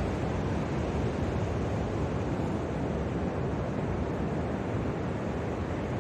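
Ocean surf on a beach with wind buffeting the microphone: a steady rush of noise without a break.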